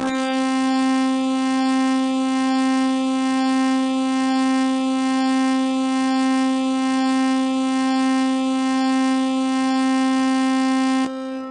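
Emergency-alert alarm tone: one loud, steady, buzzy horn-like note held at a single pitch for about eleven seconds, then cut off abruptly near the end with a short echoing fade.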